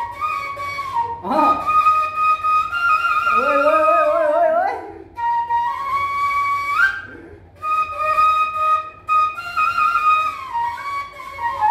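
Assamese bahi (bamboo flute) playing a Bihu tune: held notes that slide up and down between pitches, with two short breaks in the melody.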